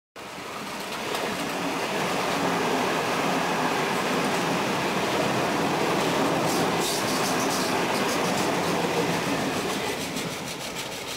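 Sydney Trains electric double-deck suburban train passing through the station at speed: a steady rush and rumble of wheels on rail, with rapid clicking of wheels over rail joints about halfway through and again near the end, then fading away.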